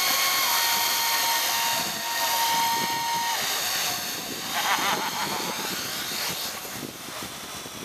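Electric RC model helicopter hovering low, its motor and rotor making a steady high whine. The pitch dips slightly about half a second in.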